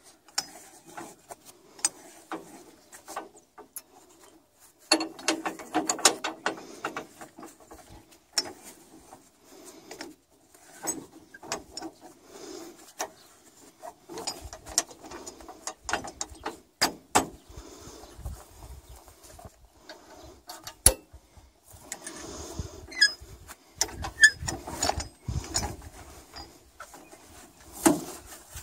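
Irregular metallic clinks, knocks and rattles from the Fiat 54C tractor's rear hitch linkage and chains being shifted and pinned by hand while a plough is attached.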